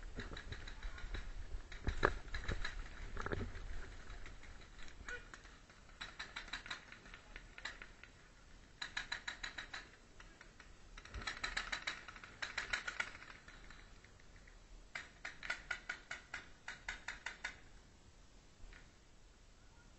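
Skirmish guns firing rapid automatic bursts, a quick run of clicking shots about ten a second, each burst lasting one to two seconds and repeated several times. A few heavier knocks sound about two seconds in.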